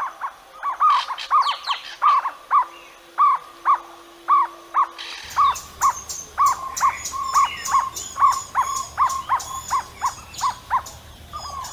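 Jungle owlet calling: a long run of short notes, about three a second, all at much the same pitch.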